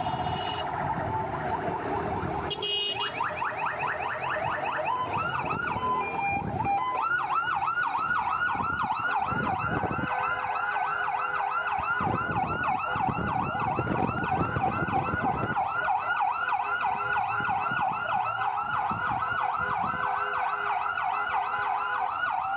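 Electronic sirens on a convoy of SUVs, several sounding at once. They start as steady tones and switch about 3 seconds in to fast repeating rising yelps, which grow denser and louder about 7 seconds in, over a low rumble of vehicles moving.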